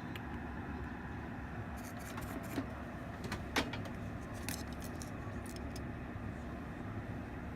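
A few light clicks and taps from handling the small circuit board and parts on a workbench, the sharpest about halfway through, over a steady low hum.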